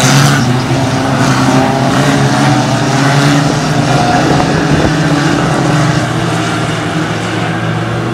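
Engines of banger racing cars running as the cars lap the oval, peaking as one car passes close, then a steady drone.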